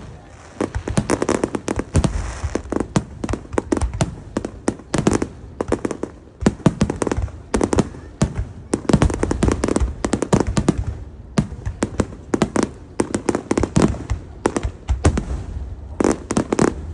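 Aerial firework shells bursting in a rapid barrage: a dense, uneven string of sharp bangs and crackles that eases briefly about six and eleven seconds in.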